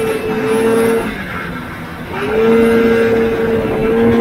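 1977 Polaris TX340 snowmobile's two-stroke engine running hard under throttle. About a second in it is let off and drops away, then from about two seconds in it revs up again and holds a steady high note.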